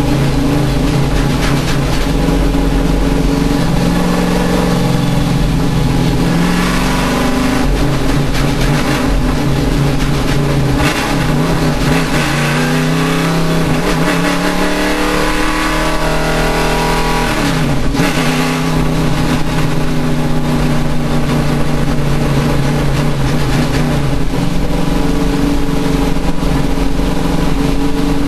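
Race car engine running hard under load, its pitch changing with the throttle: it slides down through the middle, drops abruptly about eighteen seconds in, then picks up and holds steady again.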